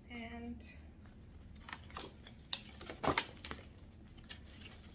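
Rustling and crinkling as a garment and its packaging are handled, with a few sharp clicks or snips, the loudest about three seconds in.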